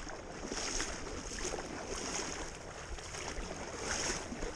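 Legs in chest waders wading through shallow river water, splashing and swishing with each stride.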